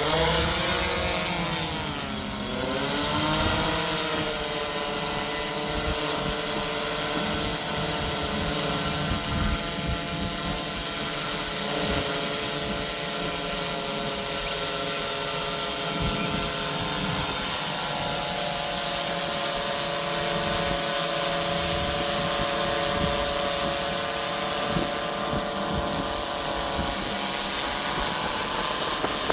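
Quadcopter's electric motors and propellers whining: the pitch swoops down and back up in the first few seconds, then settles into a steady many-toned hum with small wavers as the drone hovers.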